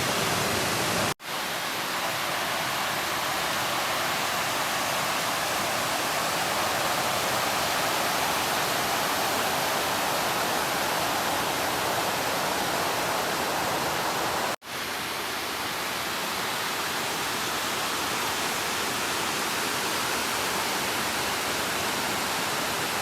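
Creek water rushing steadily down a smooth rock slab, a constant rush that breaks off for an instant about a second in and again about halfway through.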